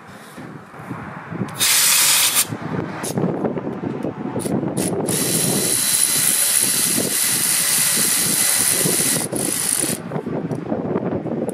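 Cordless Milwaukee Fuel ratchet turning a bolt on the chipper's blade. It runs in a short burst about two seconds in, then a few brief spurts, then a steady run of about five seconds with a high motor whine.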